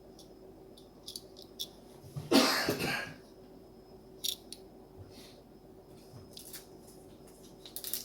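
A person coughs once, about two seconds in, with a few light clicks and taps scattered through the quiet room.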